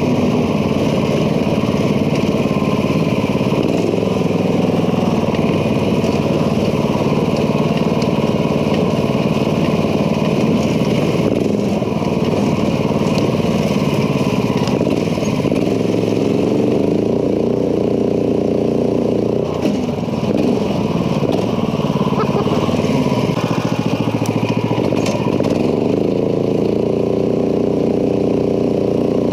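Onboard sound of a go-kart's 420cc Predator single-cylinder four-stroke engine, still governed, driving through a torque converter. It runs loudly throughout, revving up and easing off again and again as the kart is driven.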